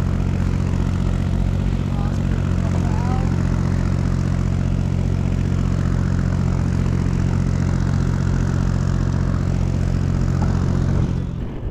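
An engine idling steadily close by, with a deep, even hum, cutting off shortly before the end.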